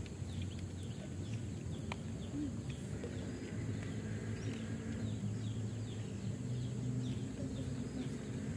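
A bird calling in short falling chirps, repeated several times a second from about three seconds in, over a low steady rumble.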